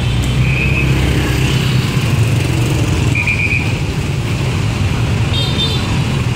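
Dense street traffic of motor scooters and motorbikes running past at close range, a steady low engine hum. A few short high beeps cut through, about half a second in, a quick run of four around three seconds in, and another near the end.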